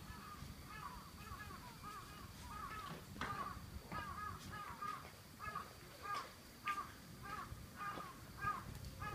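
Crows cawing in a long, regular run of short calls, about two a second, with a few sharp knocks or steps and a faint steady high-pitched tone underneath.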